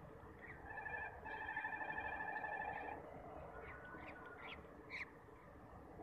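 Small birds chirping, with a loud buzzy trill starting about a second in and lasting about two seconds, then short scattered chirps and one sharp rising chirp near the end.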